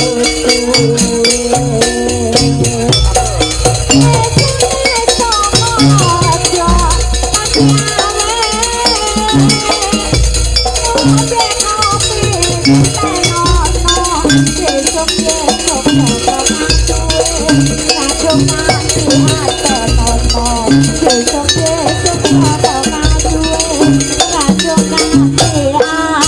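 Live jaranan sampak music from a Javanese gamelan-style ensemble: barrel-shaped kendang drums and a low drum keep a steady driving beat under a wavering melody line, with jingling metal percussion on top.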